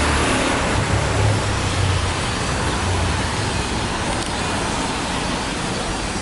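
City street traffic: steady road noise from passing cars, with a low engine rumble that is strongest in the first couple of seconds and then eases.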